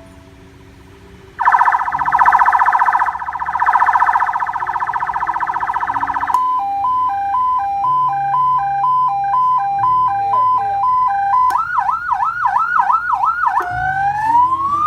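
Electronic ambulance siren through a loudspeaker driven by a CJB 200 W amplifier, cycling through its tones. It starts loud about a second and a half in with a very fast warble, then switches to a two-tone hi-lo, then a few quick yelp sweeps, and near the end a slow rising wail.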